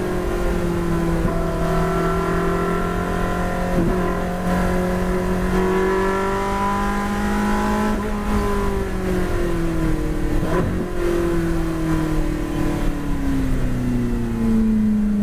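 Ferrari 458 Challenge's 4.5-litre V8 heard from inside the cockpit, pulling in fourth gear with its pitch rising slowly for about eight seconds. It then falls steadily as the car brakes and drops to third for a corner, with a few short knocks along the way.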